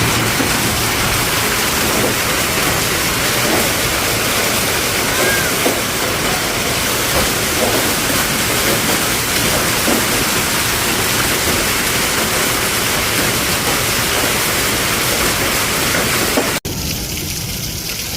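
Hail and heavy rain pelting down: a dense, steady hiss with many separate hailstone knocks scattered through it. Near the end the sound cuts out for an instant and comes back quieter and duller.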